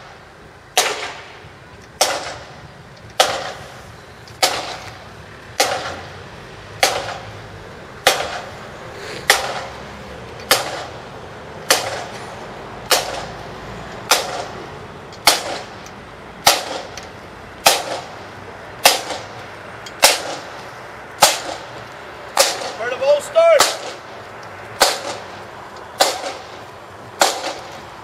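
Marching band snare drums struck together in a single sharp beat about once every 1.2 seconds, keeping time for the march with no tune being played. A short rising and falling tone cuts in about 23 seconds in.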